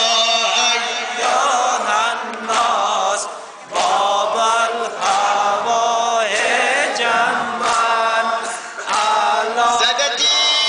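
A man's voice chanting a recitation from a book into a microphone, in long melodic phrases with brief pauses between them.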